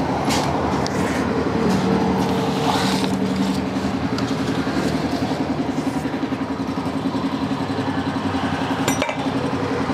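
Yamaha Mio scooter's carburetted single-cylinder engine idling steadily with an even fast pulse. The idle settles slightly a few seconds in, and there is a brief click near the end.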